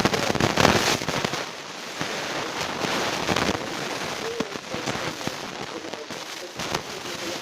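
Tsunami wave smashing into a seaside concert stage: a loud, chaotic rush and roar of water, with sharp cracks and crashes of breaking equipment and faint shouts.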